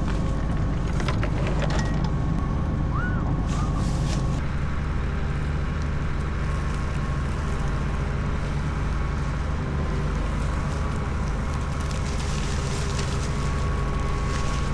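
Large diesel farm-machine engine running steadily, its note shifting slightly about four seconds in.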